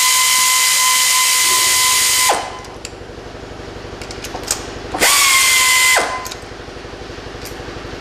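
Air ratchet running with a steady high whine and air hiss while spinning out a spark plug, stopping a couple of seconds in, then a second short burst of about a second, with a few light clicks between.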